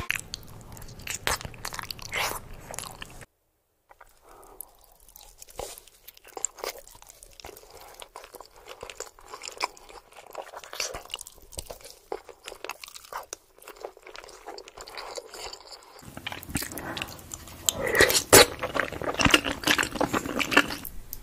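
Lasagna being bitten and chewed in mukbang eating clips: wet mouth sounds and crunchy bites. There is a brief drop-out about three seconds in, and the eating is louder over the last five seconds.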